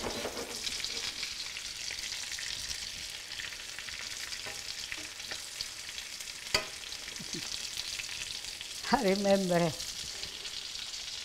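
Egg-battered chicken cutlets sizzling steadily as they shallow-fry in olive oil in a skillet, with one sharp click partway through.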